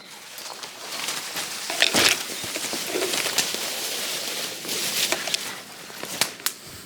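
Footsteps pushing through undergrowth and leaf litter, with twigs and branches brushing and cracking underfoot, loudest about two seconds in.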